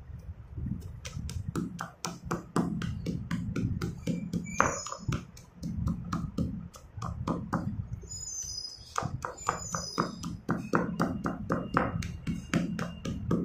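A stone pestle pounding school chalk sticks in a stone mortar: a rapid run of crunching cracks and knocks, a few strikes a second, as the chalk breaks into chunks.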